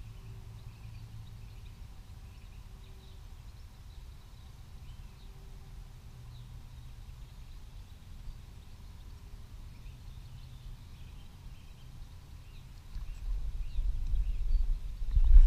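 Quiet outdoor ambience with faint, scattered bird calls over a low steady rumble. Near the end a much louder low rumble sets in.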